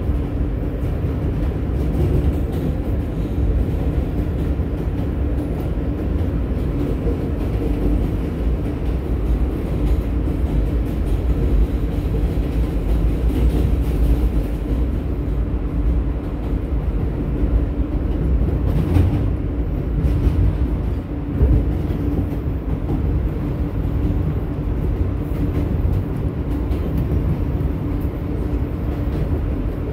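New York City subway train running along an elevated track, heard from inside the car: a steady rumble of wheels and running gear with a constant hum beneath it. About two-thirds of the way through come a brief sharp knock and a thump.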